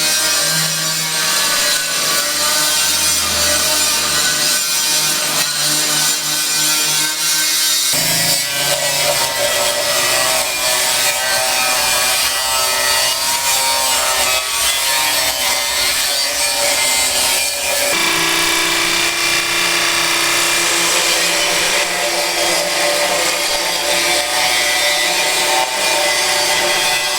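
A power tool cutting steadily: a continuous whine over a harsh hiss. The sound changes abruptly twice, about 8 and 18 seconds in.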